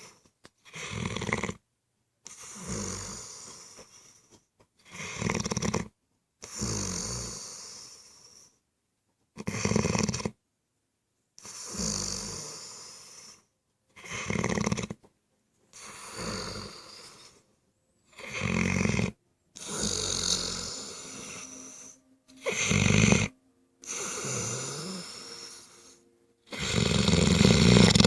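A seven-month-old English mastiff snoring in deep sleep. Short, loud snores alternate with longer breaths that fade away, about one full breath every four seconds. A faint whistling note joins in partway through, and the last snore is the loudest.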